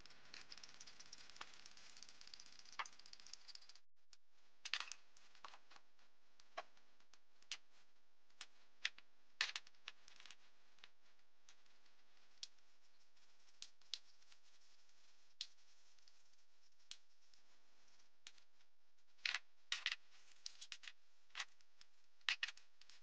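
Scattered faint clicks and clinks of hand tools and engine parts being handled in a car's engine bay, a few coming in quick clusters.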